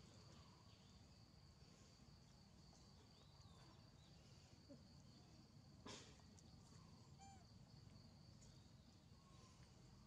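Near silence: faint outdoor ambience with a steady high-pitched tone, a few faint chirps, and a single light knock about six seconds in.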